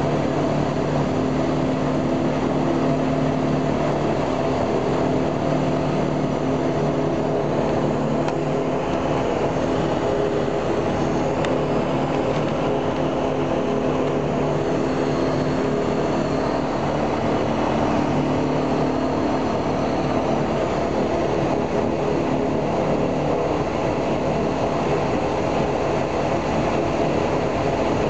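Il-14's right-hand Shvetsov ASh-82T fourteen-cylinder radial piston engine running steadily during a ground run-up, heard from inside the cockpit, its pitch shifting slightly now and then.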